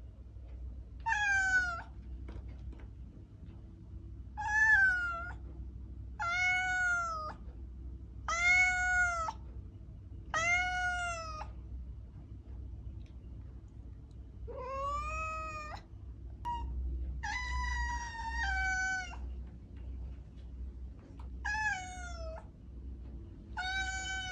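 Domestic cat meowing over and over, about ten meows each roughly a second long, most rising then falling in pitch, with one longer drawn-out meow a little past halfway. A faint low hum sits underneath.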